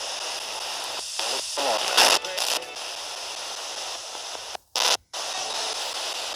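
Radio static hissing steadily, with a few short louder bursts early on and two abrupt cut-outs to silence a little past halfway, like a radio sweeping through stations.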